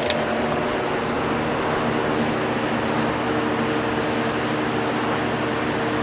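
A 42-inch Canarm Catalyst ceiling fan coasting down after being switched off, its blades swishing about three times a second, the swishes fading. A steady hiss and a low hum run underneath.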